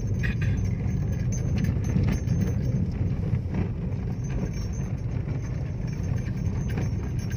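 Interior noise of a car driving slowly on a rough dirt road: a steady low rumble of engine and tyres, with a few light knocks over bumps.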